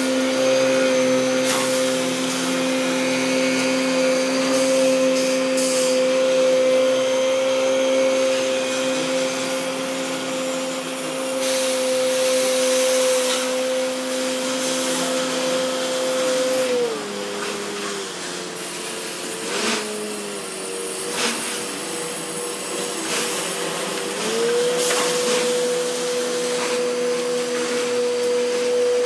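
Boom boat engine running hard with a steady whine. Its pitch drops as it throttles back about two-thirds of the way through, then rises again as it opens up, with a couple of brief knocks in between.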